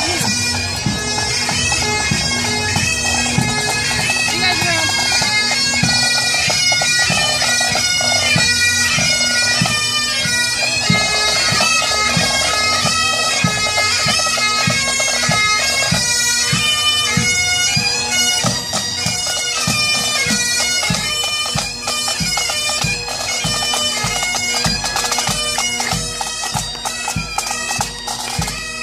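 Pipe band playing: Highland bagpipes sound a tune over a steady drone, with snare and bass drums beating time.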